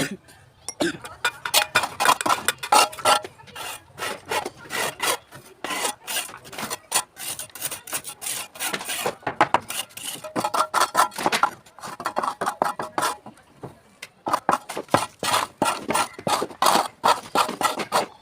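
Rough scraping on gritty material, in quick runs of short strokes broken by brief pauses.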